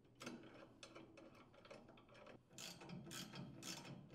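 Faint clicking of a hand socket ratchet driving a muffler mounting screw into a small engine's cylinder head: a quick run of clicks, then ratcheting strokes about twice a second.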